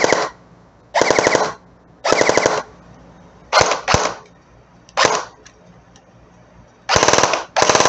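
Airsoft MP5 electric gun (G&G-built Umarex) shooting in short full-auto bursts, each a fast rattle of shots lasting under half a second, about seven bursts in all. The later bursts are with a Matrix Reloaded high-speed motor fitted in place of the stock motor.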